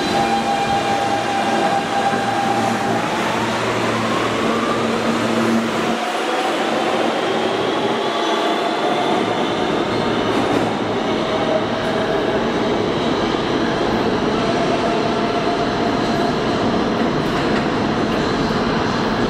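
New York City subway train running, loud and steady, with a motor whine that climbs in pitch over the first several seconds as the train picks up speed. Wavering squeal from the wheels follows later.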